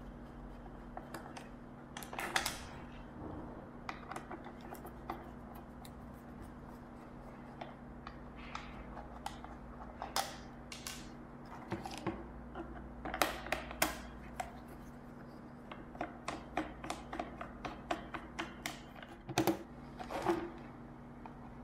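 Screwdriver backing screws out of a Sony clock radio's plastic case, then hands working the plastic housing apart. Irregular clicks, taps and scrapes, with a steady low hum underneath.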